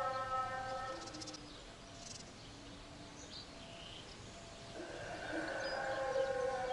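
Distant call to prayer over a mosque loudspeaker: a man's voice holding long notes. It fades to a quieter, lower phrase about a second in and swells back near the end, with birds chirping.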